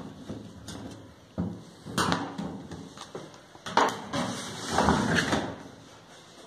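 Handling noises on a clothes dryer's sheet-metal top: a screwdriver and hands knocking and scraping on the panel. Several sharp knocks, the loudest about two seconds in and just before four seconds, then a longer stretch of scraping and rubbing around five seconds in.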